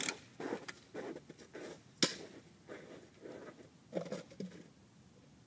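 Footsteps crunching through snow, about two a second, then a single sharp snap about two seconds in, followed by a few soft rustles.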